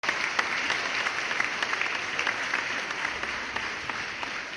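Audience applauding, a dense patter of many hands clapping that slowly fades in the second half.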